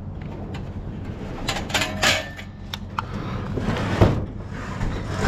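Knocks and scraping as a heavy scrap item, weighed down with water inside, is handled and turned, with a hard knock about four seconds in. A steady low hum runs underneath.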